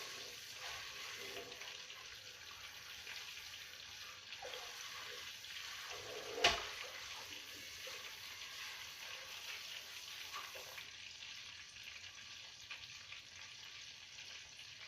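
Tap water running steadily while a dish is washed out at the sink, over the steady sizzle of fish frying in oil. One sharp knock about six and a half seconds in.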